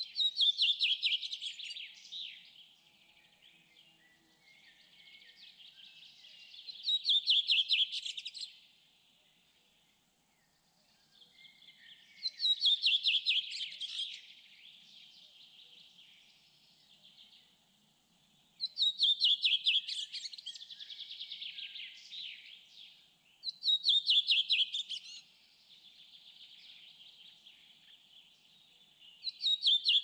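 A songbird repeats a loud, fast trilled song phrase about every five to six seconds, six times, with fainter birds twittering steadily in between.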